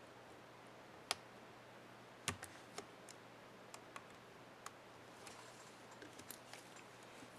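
Scattered small plastic clicks and taps from an HP Stream 11 laptop keyboard's up-arrow keycap and its clip being worked on. There is a sharp click about a second in and a duller knock a little over two seconds in, then lighter irregular ticks.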